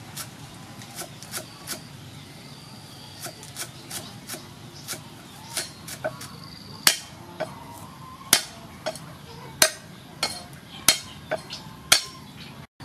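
Knife cutting lotus root on a cutting board: a run of sharp knocks, lighter and quicker at first, then louder and more widely spaced from about six seconds in.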